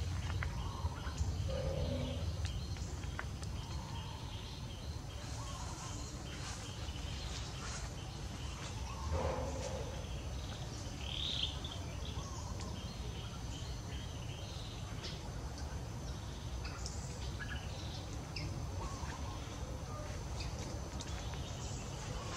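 Outdoor ambience: a steady low rumble and a thin, steady high tone, with a few short calls and chirps scattered through, a higher chirp about eleven seconds in.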